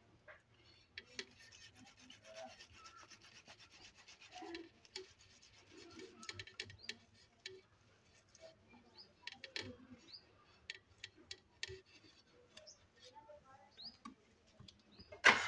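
Boiled potato being grated by hand on a flat stainless steel grater: faint soft scraping strokes with scattered light clicks of metal.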